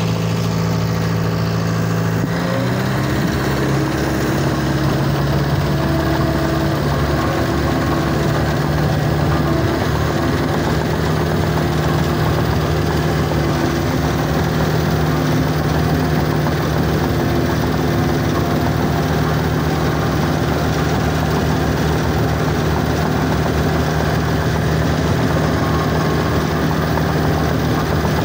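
John Deere 650K LGP crawler dozer's diesel engine, heard from the operator's seat. It revs up about two seconds in, then runs loud and steady under load as the dozer pushes dirt.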